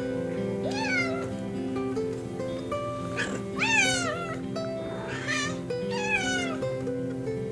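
A domestic cat meowing four times, with falling pitch, the second meow the loudest, over soft background music.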